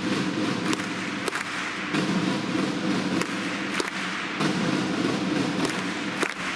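Football stadium crowd ambience with a steady run of sharp beats, a little under two a second, over a continuous crowd hum.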